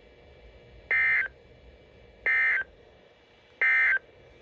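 Three short buzzy data bursts of NOAA Weather Radio SAME digital tones, evenly spaced about a second and a half apart, from a Midland weather radio's speaker. They are the end-of-message code that closes the severe thunderstorm warning broadcast.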